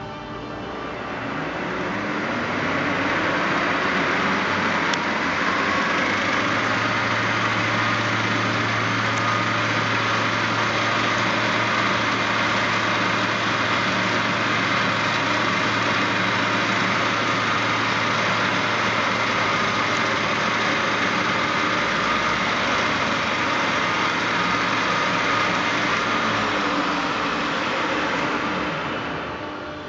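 1989 MECOF CS 88 G bed milling machine running: its drives spin up with a whine rising in pitch over the first couple of seconds, then run steadily, and wind down near the end.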